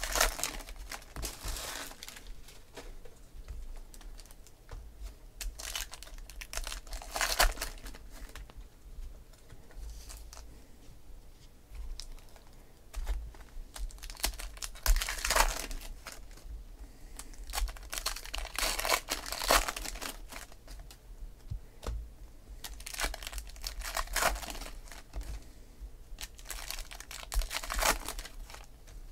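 Foil wrappers of Topps Gold Label baseball card packs being torn open and crumpled, in crinkly bursts about every four to five seconds. Between the bursts come softer rustles and clicks as the cards are handled and sorted.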